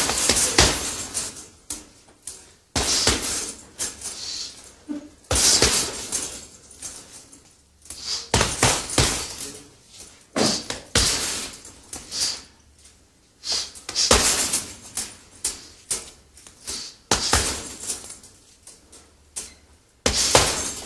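Sound-effect voices from an electronic keyboard: a series of crashes like breaking glass, a new one every two to three seconds, each dying away, with smaller hits between them.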